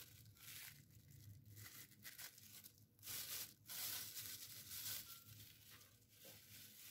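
Plastic freezer bag rustling and crinkling faintly as a bag-wrapped dessert is pulled out of a glass and handled, louder about three seconds in.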